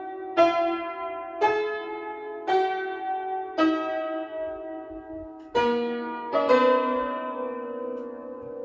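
Upright piano played slowly, with a note or chord struck about once a second and left to ring. Near the end two chords follow close together and are held, fading away.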